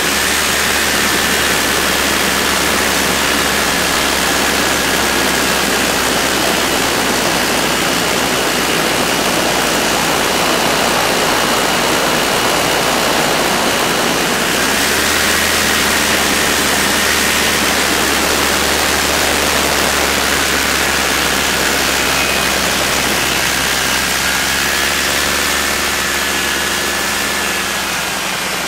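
Ultralight aircraft engine and propeller running steadily in flight, heard from on board under a heavy rush of wind, with a faint high whine that drifts slightly in pitch.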